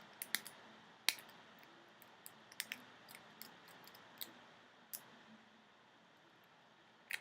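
Faint, irregular metallic clicks and scrapes of a lock pick and tension tool working the pins inside a Master Lock padlock's keyway, about a dozen light clicks spread unevenly, with a sharper one about a second in.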